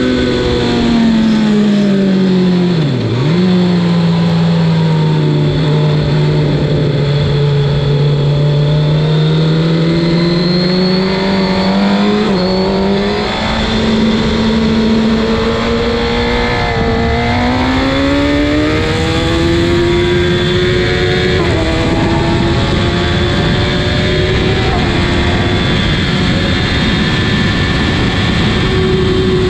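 Suzuki GSX-R 1000's inline-four engine at speed on a race track. The note drops as the bike slows in the first few seconds, then climbs steadily through a long stretch with a few brief breaks and holds high near the end, over a constant rushing noise.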